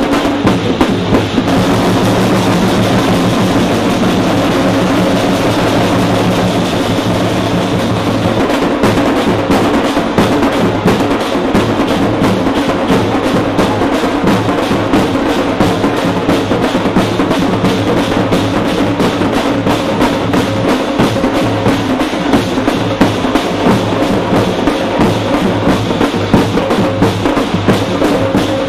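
Procession drums beaten hard and fast in a dense, continuous rhythm, with a steady low hum beneath.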